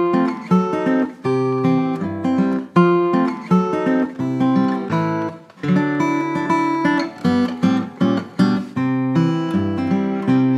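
Background music: acoustic guitar played with plucked and strummed notes at a steady rhythm.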